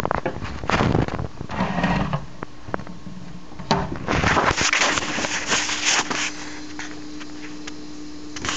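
Handling noise: two bursts of rustling and knocking, from the start to about two seconds in and again from about four to six seconds in, with a few sharp clicks, over a steady low hum.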